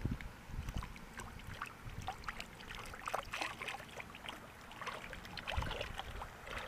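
Water splashing as a released largemouth bass thrashes free of the hand and swims off through shallow water, with a run of small splashes and drips.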